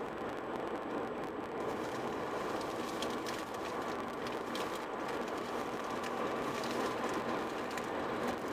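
Steady road and tyre noise of a car driving on a highway, heard from inside the cabin, with a faint even hum underneath and a few light clicks.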